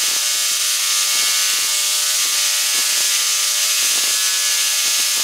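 BM7 Tesla coil fired by a 200-breaks-per-second synchronous rotary spark gap: its arcs give a loud, steady buzz pitched at the break rate, with irregular crackles as the streamers strike out.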